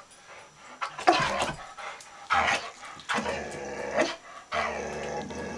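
American Staffordshire terrier mix vocalising four times: two short barks, about one and two and a half seconds in, then two longer, drawn-out low grumbling calls.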